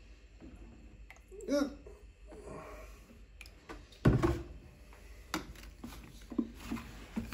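Detergent being poured from a plastic bottle into a washing machine's dispenser drawer, with a brief pitched sound about one and a half seconds in. A solid knock about four seconds in is the loudest sound, followed by several lighter clicks and taps of the bottle and drawer being handled.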